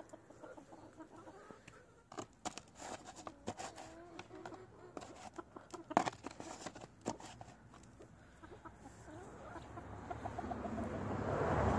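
Farm animals calling, with short pitched calls scattered among sharp clicks and knocks. A broad rushing noise swells over the last few seconds.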